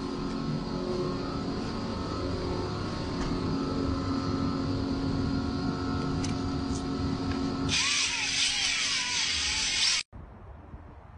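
Cordless drill motor running steadily, spinning a paint roller fitted in its chuck. Near the end a loud hissing rush lasts about two seconds and cuts off suddenly.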